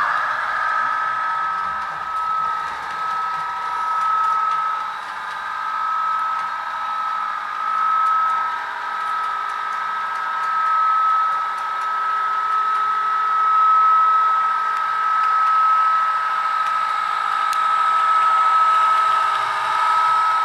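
Diesel railcar engine sound played by a Zimo MX645P22 sound decoder through the small on-board speaker of a Bachmann Class 158 model DMU as it runs, thin and without bass, with a steady high whine and a level that rises and falls slowly.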